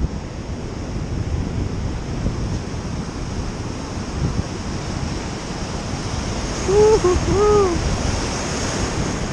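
Ocean surf washing and breaking around the microphone, with wind buffeting it in a steady low rumble. Late on, a brief call of two or three short rising-and-falling notes rings out over the surf.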